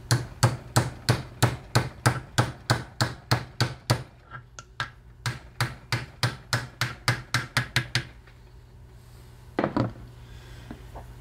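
Hammer tapping a square-drive socket down onto a tight square-headed field-coil bolt in a tractor starter's metal housing, seating it solidly so that it bites the bolt head. About three sharp metallic blows a second for some four seconds, a short pause, another run of about three seconds, then a couple of knocks near the end.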